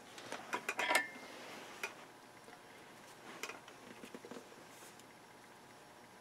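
Multimeter test probes and hand tools being put down and picked up on a workbench: a quick run of sharp clicks and clatter in the first second, one more click shortly after, then only a few faint ticks.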